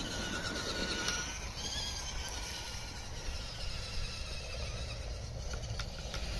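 FTX Ravine RC rock crawler's electric motor and gears whining as it drives, the pitch rising and falling with the throttle, with a few light clicks about five seconds in.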